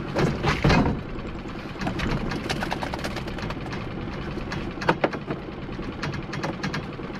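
A small boat's engine idling with a rapid, steady patter, while a wire-and-net lobster pot is handled over it with scattered clicks and knocks, two sharp knocks about five seconds in.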